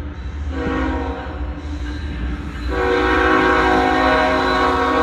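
BNSF diesel freight locomotive's air horn blowing as the train approaches: a short break, a blast from about half a second in, then a louder blast from just under three seconds in. A steady low rumble of the train runs underneath.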